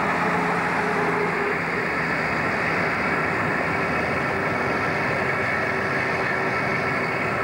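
Diesel engine of an old two-car 'Spuddy' railcar set running as it pulls away, its engine tones fading after a second or so into a steady rushing noise.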